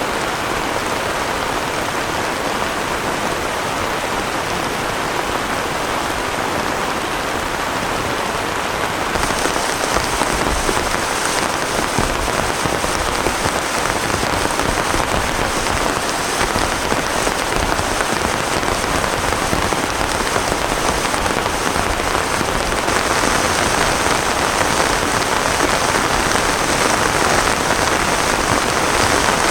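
Heavy rain pouring steadily. It grows louder and hissier about nine seconds in, and again a few seconds before the end.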